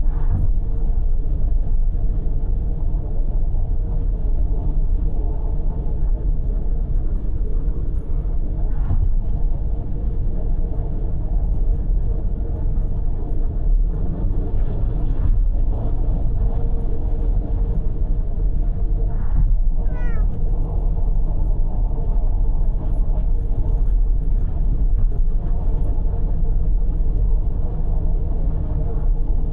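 Steady road and engine rumble inside a car at highway speed, with a cat meowing; the clearest meow, with a falling tone, comes about two-thirds of the way through.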